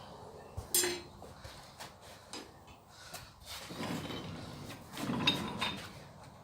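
Metal clanking and scraping as steel and tools are handled at the forge: a sharp clank about a second in, a few lighter knocks, then rougher scraping and clattering with a brief metallic ring past the middle.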